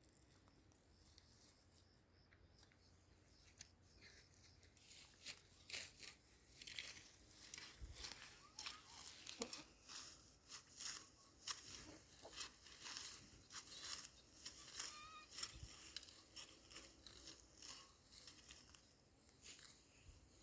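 Grass and plants being cut and torn by hand: a faint, irregular run of crisp snips, tears and rustles that gets busier about five seconds in.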